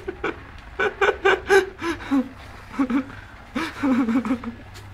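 People laughing in short bursts of chuckles, a quick run of them about a second in and a longer wavering laugh near the end.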